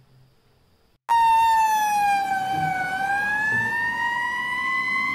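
Fire engine siren wailing. It cuts in suddenly about a second in; its pitch falls, then slowly rises again and levels off.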